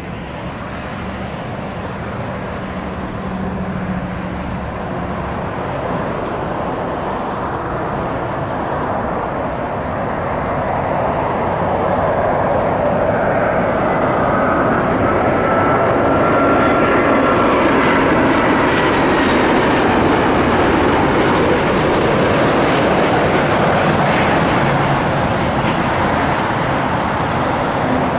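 Airbus A350-900 on final approach, its Rolls-Royce Trent XWB engines growing steadily louder as it comes in and passes close by. About halfway through, an engine whine slides down in pitch as the jet goes past, and the rush then eases slightly.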